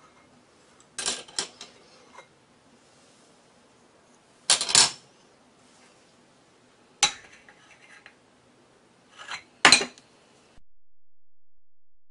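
Porcelain spoon and chopsticks clinking against a glazed clay pot: a few sharp, separate clinks and knocks spread out over several seconds, with quiet between them.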